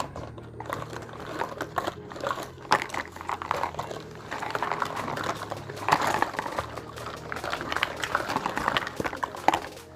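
Miniature toy kitchen pieces and packaging being handled: many light clicks and rustles, over soft background music.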